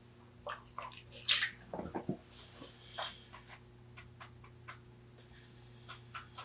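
Potter's wheel motor humming steadily while a rib is pressed against the wet clay wall of a tall thrown pot turning on the wheel, giving short wet scrapes, squeaks and clicks, the sharpest a little over a second in.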